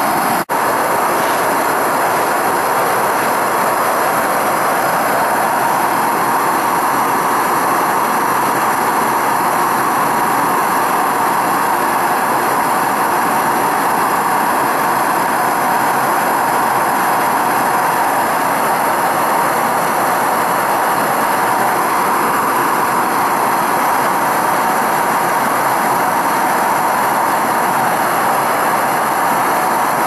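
Bernz-O-Matic air/propane hand torch firing into a small furnace, a steady, even rush of burning gas as it heats a graphite crucible to melt silver. A momentary break comes about half a second in.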